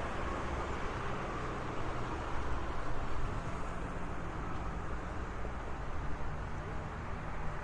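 Steady road traffic noise, a continuous rumble and hiss of passing cars.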